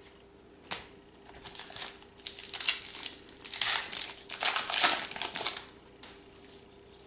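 Trading-card pack wrapper crinkling as a pack is opened by hand: a run of rustling bursts that builds to its loudest a few seconds in, then stops.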